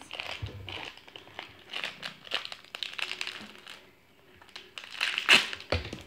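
Crinkly striped wrappers of an L.O.L. Surprise toy crumpled and handled by hand, a crackling rustle that pauses briefly around four seconds in and ends with a sharp, loud crinkle about five seconds in.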